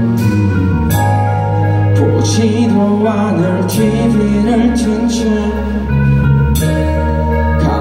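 Live rock band playing: two electric guitars, electric bass holding low sustained notes, and drums with repeated cymbal hits.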